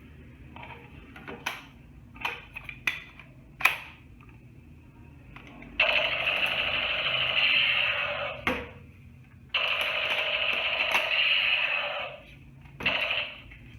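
Toy gun's electronic sound effect buzzing from its small speaker in two bursts of two to three seconds each, the second starting about a second after the first ends. Several sharp clicks come before them.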